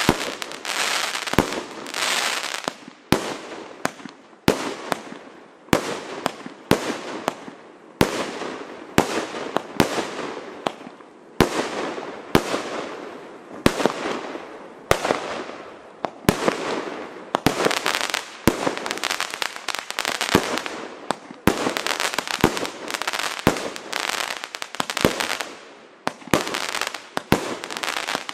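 Klasek Compound Signature Range C2003SIG, a 200-shot 30 mm (1.2") compound fireworks cake, firing without a break. Sharp shots and bursts come one to two a second, each trailing off into a rush of noise before the next.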